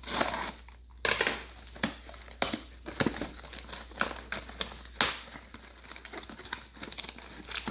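Cardboard box and plastic wrap being handled and opened: crinkling plastic and scraping cardboard, with irregular sharp crackles.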